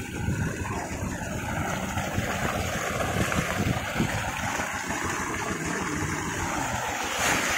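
Water gushing at full flow from a pump's discharge hose and splashing into a flooded field channel, a steady rushing noise with a rumble underneath.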